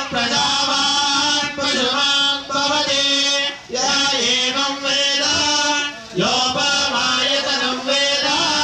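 Male voices chanting Sanskrit Vedic mantras for a Shiva abhisheka, holding long notes at a steady pitch. The chanting breaks briefly for breath several times.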